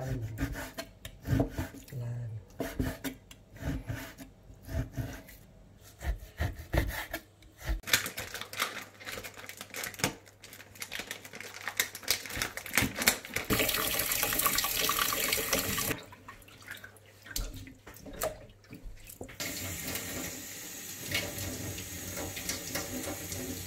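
Kitchen knife slicing raw beef on a wooden cutting board, a run of short knocks for the first several seconds. Later a tap runs into a stainless steel sink holding frozen peeled shrimp: loudly for a couple of seconds about halfway through, then steadily again near the end.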